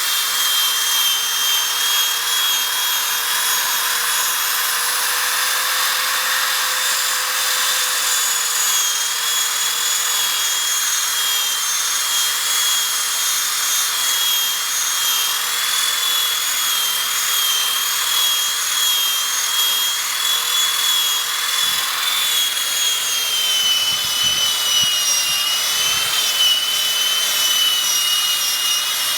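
Polishing buffer running steadily with a high whine, its pad rubbing polish and water into a boat's acrylic nameplate; the whine dips slightly in pitch near the end.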